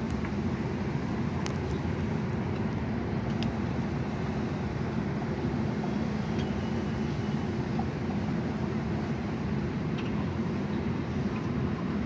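Steady low rumble of background noise, with a couple of faint ticks.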